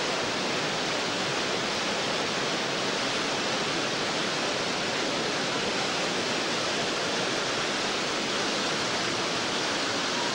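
Whitewater river rapids rushing: a steady, even wash of water noise with no break.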